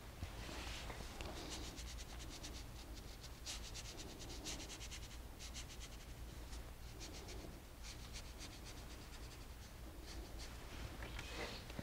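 Small paintbrush scratching lightly across heavy 300 lb watercolor paper in runs of short, quick strokes while a thin line of paint is laid along an edge. A low steady hum sits underneath.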